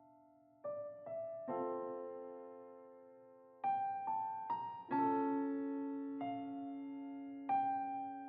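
Background piano music: slow single notes and chords, each struck and left to ring away.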